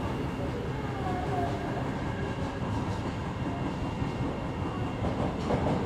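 Kita-Osaka Kyuko 9000 series subway train running steadily, heard inside the car: a continuous low rumble of wheels on rail and running gear, with a faint brief whine about a second in.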